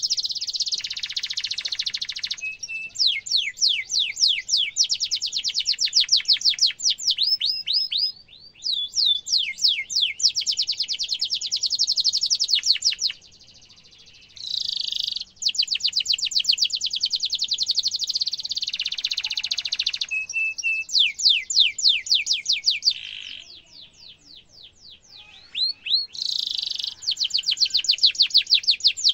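Canary singing fast rolling trills, long runs of rapidly repeated falling notes, in several phrases broken by short pauses.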